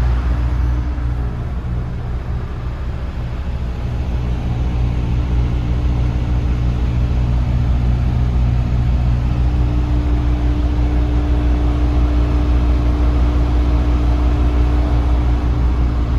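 DAF CF290 truck's diesel engine running steadily at low speed, with a steady hum joining about nine seconds in.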